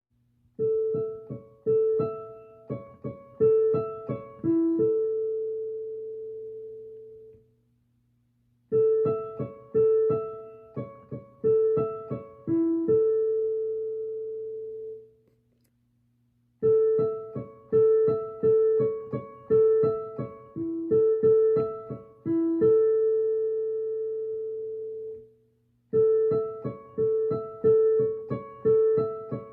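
Piano playing the NHK emergency broadcast chime, worked out by ear. A short figure of quick repeated notes ends on a held note that rings and fades. The figure plays three times with brief pauses between and starts a fourth time near the end.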